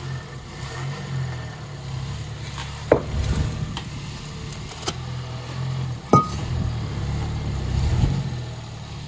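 A Ford Bronco's engine runs with a steady low rumble as the truck creeps over a concrete cinder block. Two sharp knocks, about three and six seconds in, the second louder with a short ring, come from the block being tipped by the tire and hitting the pavement.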